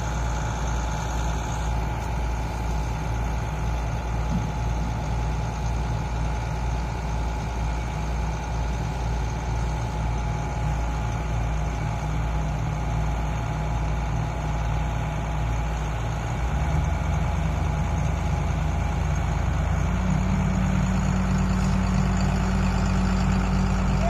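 Heavy diesel farm-machinery engine running steadily, then speeding up in two steps, about 16 and 20 seconds in, and running a little louder after each.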